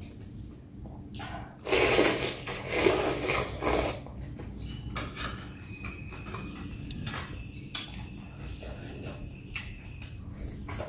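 Loud slurping of rice vermicelli noodles in a few pulls about two seconds in, then chewing and small clicks of chopsticks against a glass bowl.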